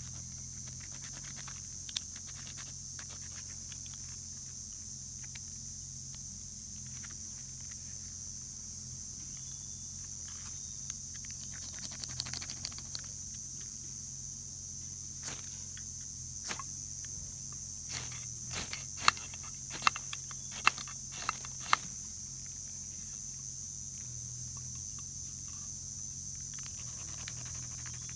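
Firewood being handled and broken for a campfire: scattered clicks and snaps, then about five sharp wooden knocks less than a second apart about two-thirds of the way in, over a steady high-pitched drone.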